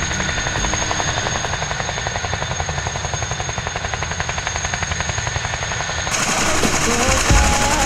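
Boeing CH-47 Chinook helicopter running on the ground, its twin rotors beating in a rapid, even pulse over a steady high turbine whine. About six seconds in, the sound changes abruptly to a louder, brighter noise.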